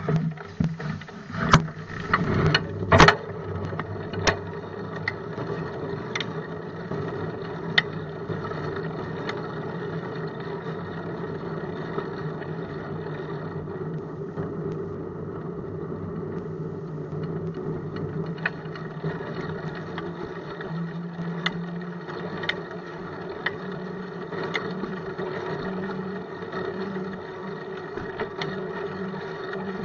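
Bicycle in motion heard through a camera mounted on the bike: a steady drone and rattle, with a few sharp knocks in the first three seconds and fainter clicks after, as the wheels go over bumps.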